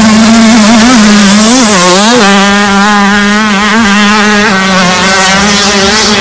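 Dirt bike engine running at high, nearly steady revs, with a few quick dips in pitch and recoveries in the first two seconds as the throttle is eased and reopened.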